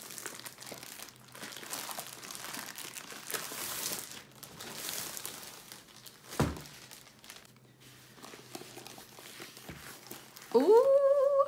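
Clear plastic sleeve crinkling and stiff paper rustling as a rolled diamond painting canvas is slid out and handled, with a single thump about six seconds in as the roll is set down. Near the end a woman's voice gives a long rising "ooh".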